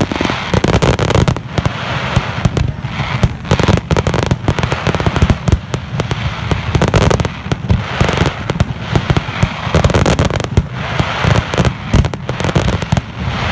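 Fireworks display: a dense, rapid barrage of bursting shells and bangs, many per second, mixed with crackling.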